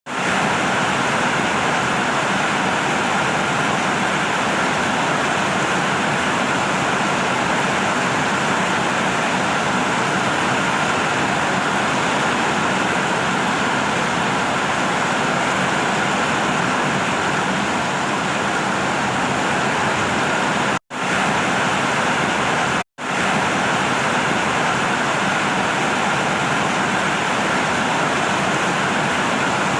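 Steady heavy rain, a dense even hiss with no separate drops standing out, that cuts out for an instant twice about two-thirds of the way through.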